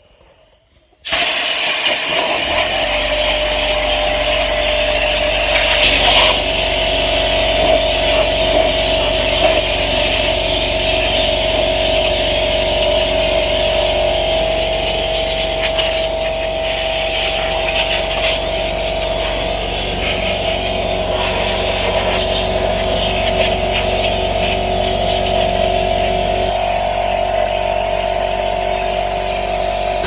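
Compressed air blasting from a blow-gun nozzle onto refrigerator condenser coils to clear the dust: a loud, steady hiss with a whistling tone, starting about a second in. A low hum runs underneath.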